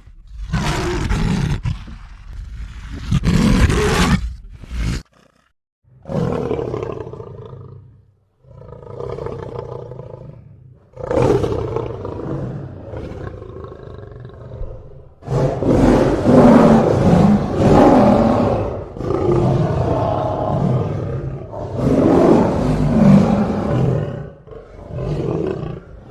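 Lion roaring: a series of deep, rough roars, separated by short pauses in the first half and running almost without a break through the second half.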